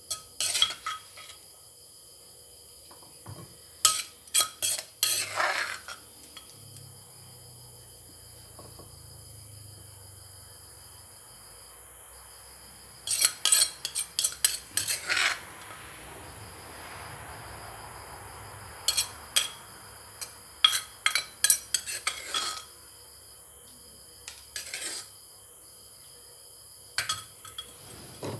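Metal spoon clinking and scraping against an earthenware mortar as a fruit salad is tossed and mixed, in several clusters of quick clicks with pauses between them.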